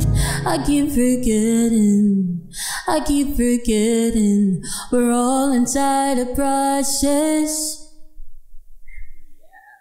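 A woman singing into a microphone over a keyboard accompaniment whose low notes stop about two and a half seconds in; the voice carries on nearly alone and fades out near the end as the song closes.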